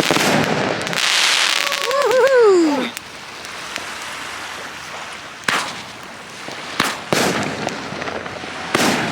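Consumer fireworks going off: a dense crackling burst for the first few seconds, then a quieter stretch broken by three sharp bangs. A short wavering tone slides down in pitch near the end of the crackling.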